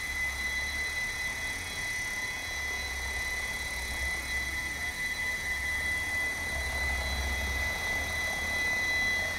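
Electric 700-size RC helicopter (Assault 700) hovering at low head speed, about 1100 rpm: a steady high motor whine over a low rotor drone that swells and eases slightly.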